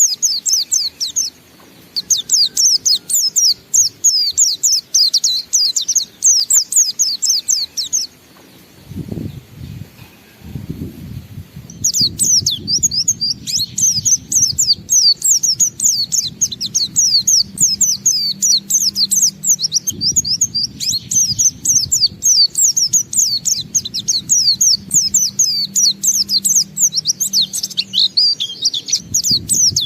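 A white-eye (pleci) singing its long, fast 'ngalas' song: rapid high chirps and trills strung together with hardly a break, pausing for a few seconds about eight seconds in before starting again. A lower rough background sound comes in from about nine seconds on under the song.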